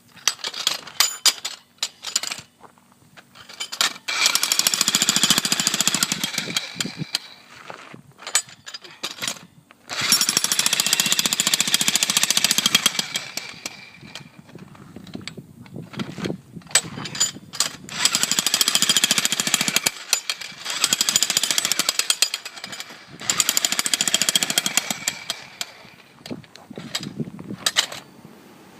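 Electric jackhammer hammering into concrete in repeated bursts of a few seconds, stopping and restarting with short pauses between.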